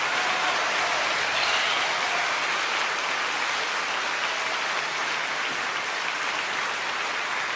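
Dense chattering of a large flock of birds, many calls overlapping into a steady hiss-like din with a few brief notes standing out.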